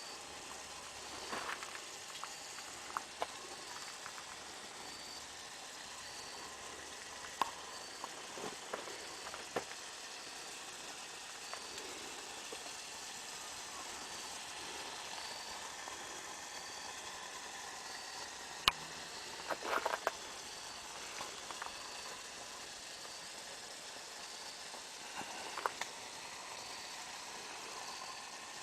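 Food frying in hot oil: a steady sizzling hiss with scattered pops and sharp clicks, a few louder clacks about two-thirds of the way in.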